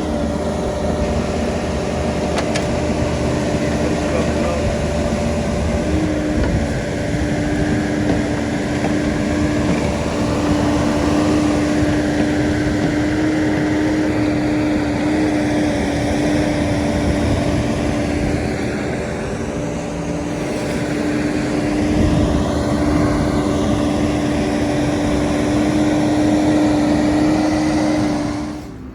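A motor or engine running at a steady pitch with an even hum, cutting off abruptly at the end.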